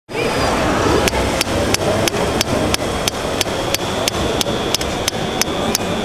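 Hydraulic breaker on an RC model Atlas excavator hammering, with sharp, evenly spaced taps about three a second that start about a second in, over steady hall background noise.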